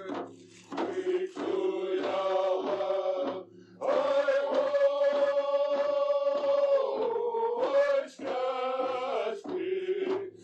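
A man's voice singing a chant-like song in phrases, with one long note held for about three seconds midway.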